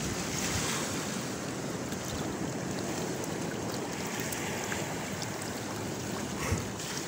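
Sea surf washing steadily, with wind rumbling on the microphone. A single knock about six and a half seconds in.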